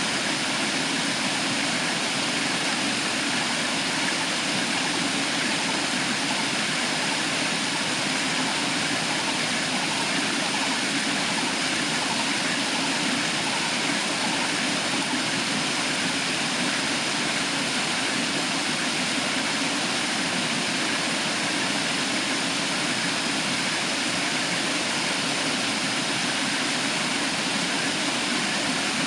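Waterfall pouring steadily, a constant full rush of falling water.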